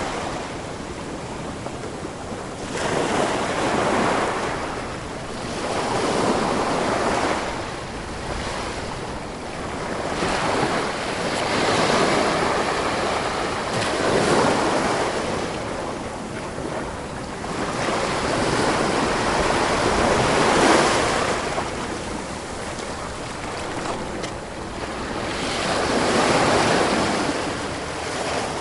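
Ocean waves breaking and washing on a shore, the surf swelling and ebbing every two to four seconds.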